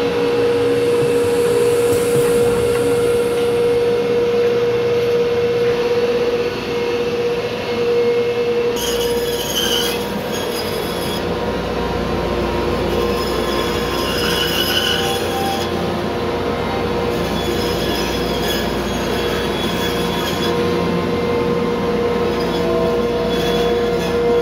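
A woodworking power tool running with a steady whine, with three stretches of added higher hiss.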